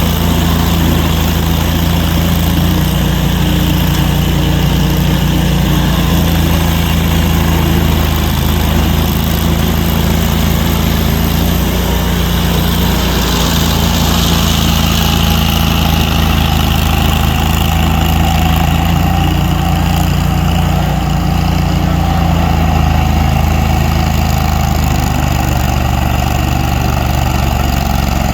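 A heavy engine running steadily at idle, with a constant low hum and a brief rise of hiss about halfway through.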